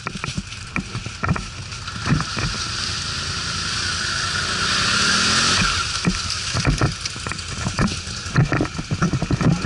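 ATV engine running, its pitch rising and swelling for a few seconds in the middle, over many irregular knocks and bumps.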